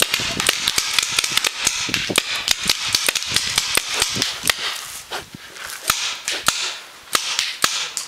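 Paintball markers firing: sharp, irregular pops, several a second, in a running exchange. The shooting thins out after about five seconds.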